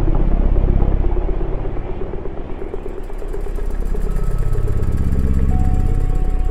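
Dark ambient drone music: a low, heavy drone with a fast throbbing pulse. It thins out about two seconds in, then swells back, and a faint high steady tone joins it.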